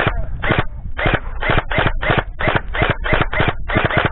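Gel blaster firing a rapid string of shots, about four a second, with short breaks in the rhythm.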